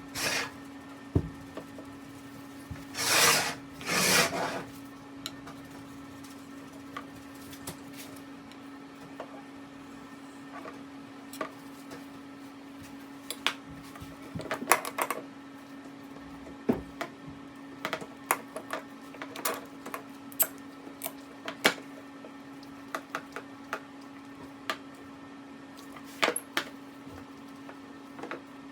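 Workshop handwork: two short scraping strokes about three seconds in, then scattered light clicks and taps of tools and parts being handled, over a steady low hum.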